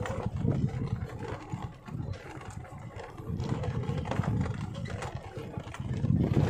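Motorcycle engine running and revving up and down as it rides over a rough, rocky dirt trail, with scattered knocks and rattles; it is loudest near the end.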